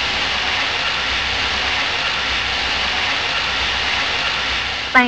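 Steady hiss of water running from a wall tap, with a sharp click near the end.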